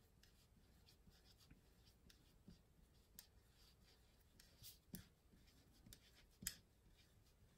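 Faint scratching of a Pigma Calligrapher felt-tip pen writing on planner paper, a string of short light strokes as letters are formed.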